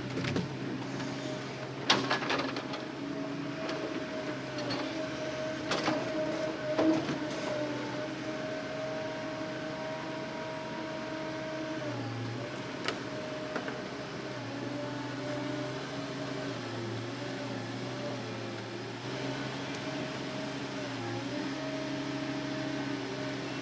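Hitachi Zaxis excavator's diesel engine and hydraulics running steadily while loading logs, with a whine that steps up and down in pitch as the hydraulics work, and a few sharp knocks.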